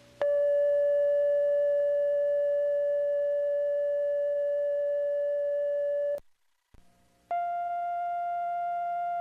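Steady reference test tone from a videotape's colour-bar segment. It cuts off about six seconds in, and after a second of near silence a second steady tone, slightly higher in pitch, begins.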